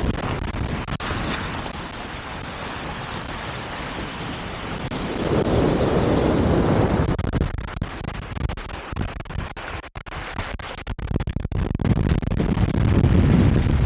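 Wind noise on the microphone: a rushing, gusting roar that swells about five seconds in and again near the end, with brief dips in between.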